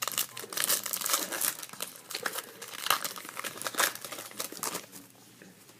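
Foil wrapper of a trading-card pack crinkling and crackling as it is handled, dying down about five seconds in.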